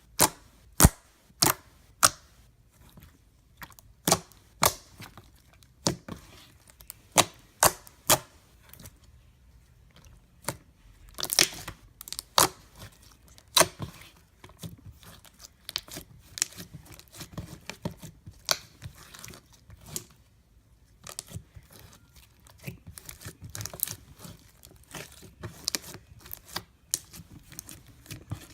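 Glossy slime being squeezed and stretched by hand, giving sharp wet pops and clicks at an irregular pace, loudest in the first eight seconds and coming faster and softer after that.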